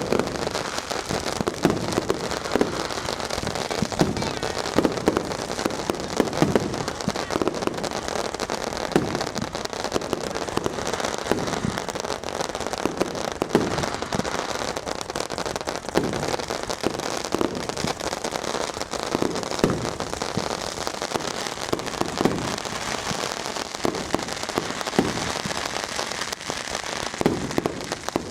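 Dense, continuous crackling and popping of many fireworks and firecrackers going off at once, like heavy rain, with frequent louder bangs standing out.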